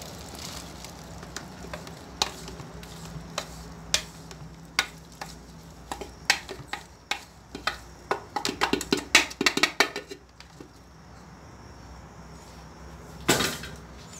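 Kitchen utensils clinking and knocking against a metal pressure-cooker pot as boiled fruit is scooped out into a sieve: a run of sharp clinks that come quickest between about eight and ten seconds in, then one louder clatter near the end.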